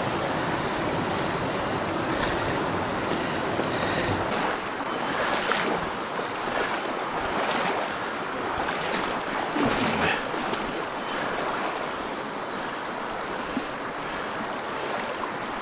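A rocky mountain stream running: a steady rush of water over stones, with a few brief louder moments about five and ten seconds in.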